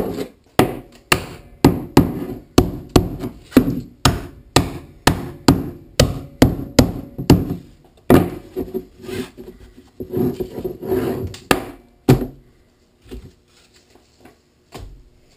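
Rubber mallet tapping white plastic pipe elbow fittings onto a pipe frame on a wooden workbench, sharp blows about two a second. After about eight seconds come a few seconds of scraping and knocking, which stop about twelve seconds in; a light knock follows near the end.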